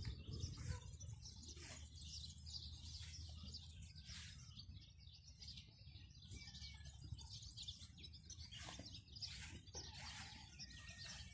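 Small birds chirping faintly and intermittently, over a low steady rumble.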